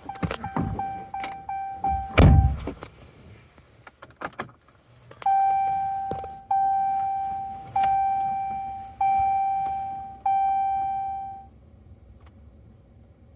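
Pickup truck's warning chime dinging: quick repeated dings mixed with clicks and a heavy thump about two seconds in, then five slower, evenly spaced dings, each fading out, before it stops.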